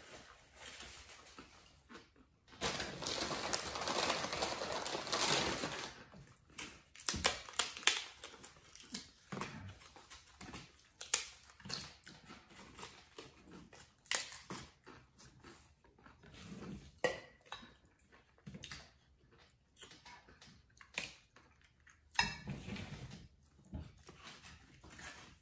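Eating at a table: corn tostadas crunching as they are broken and bitten, with chewing and plates and cutlery clinking in short, sharp clicks. A longer stretch of rustling comes a few seconds in, and another near the end.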